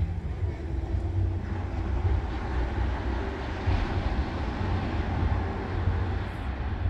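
Wind rumbling on the microphone over the steady wash of ocean surf breaking on the beach, with the surf swelling about two to four seconds in.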